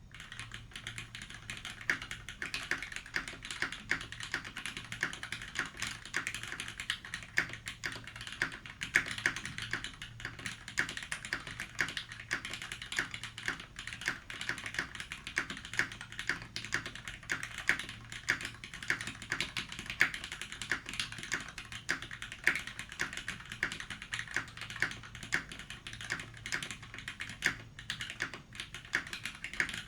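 Continuous fast typing on a custom 60% mechanical keyboard with a brass plate in a tray mount, lubed linear Cherry MX Red switches and GMK keycaps: a steady stream of key clacks with occasional louder strikes, likely from the spacebar.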